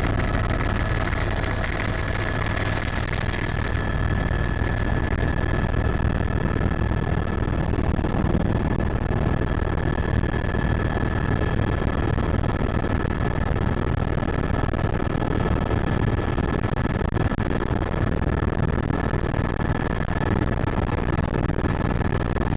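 Helicopter in flight, running steadily: a loud low drone with a thin, steady high whine over it.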